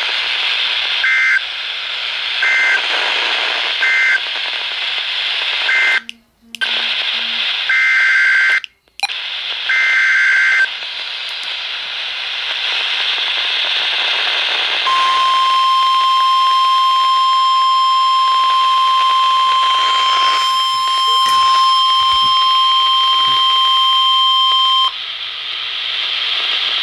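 NOAA Weather Radio alert heard through a receiver with a background of static hiss: several short, harsh two-pitch digital data bursts of the SAME header, broken by two brief dropouts, then the 1050 Hz Warning Alarm Tone, a steady high-pitched tone held for about ten seconds that heralds a new warning.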